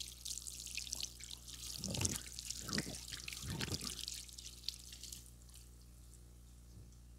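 Close, wet crackling and fine clicking for about five seconds, with three short low rubbing sounds near the middle.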